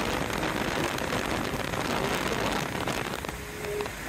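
Steady rushing wind and road noise from a car travelling at highway speed, with a faint steady engine tone showing briefly near the end.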